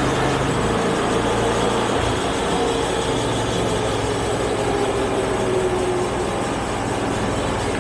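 Engine running steadily at the sawmill, with a faint whine that slowly drops in pitch over a few seconds.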